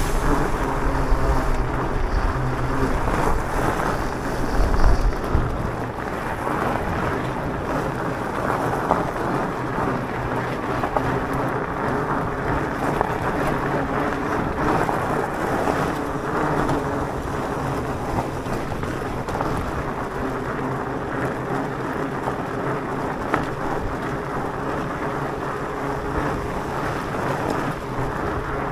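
Steady rolling noise of an electric mountain bike's tyres on a gravel road, with wind buffeting the microphone, heaviest in the first few seconds.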